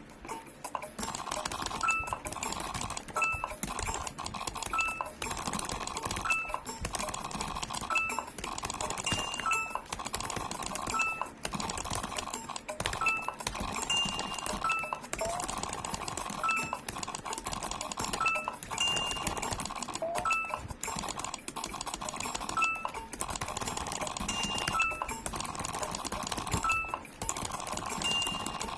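Computer keyboard typed on with two index fingers: keystroke clicks come at an uneven pace, and a short high beep sounds about every one and a half seconds.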